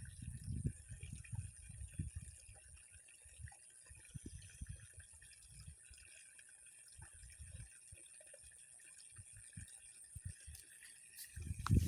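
Faint water sounds at the edge of a canal, with irregular low knocks and rumbles and a steady high-pitched hum; a louder thump comes near the end.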